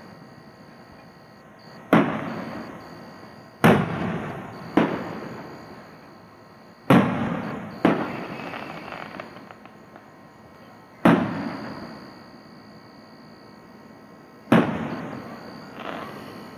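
Aerial firework shells bursting, about eight bangs at uneven gaps of one to three seconds, each trailing off in a long fading echo.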